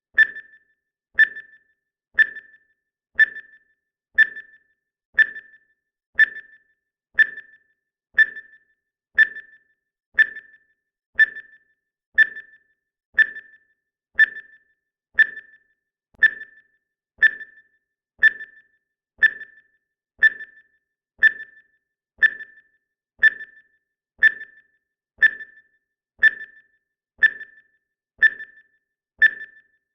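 Countdown timer sound effect: a short, high electronic ping once every second, each fading quickly with a faint echo after it, marking off the seconds.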